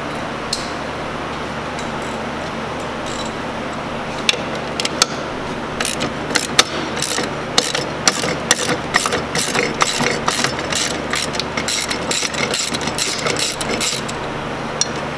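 Hand ratchet wrench clicking in quick runs as it backs out the strut top-mount bolts. A few single clicks come about four seconds in, then dense rapid clicking until just before the end.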